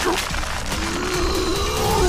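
Anime soundtrack: background music over a dense rumbling effect. About a third of the way in, a man's low, angry growl builds and keeps going, the sound of a muscle-bound fighter enraged.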